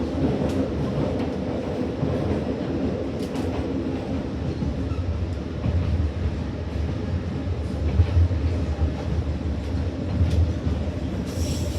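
Passenger train running, heard from inside the carriage: a steady low rumble with occasional faint clicks from the wheels on the rails. Near the end a high wheel squeal sets in.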